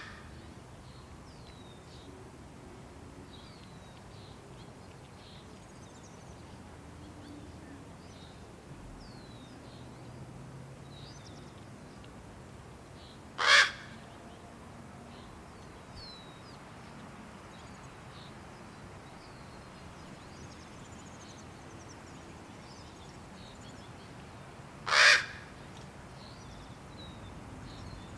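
Fledgling raven giving a short, loud call twice, about eleven seconds apart: a hungry young bird begging while it waits for its parents to feed it. Faint high chirps of small birds come in between.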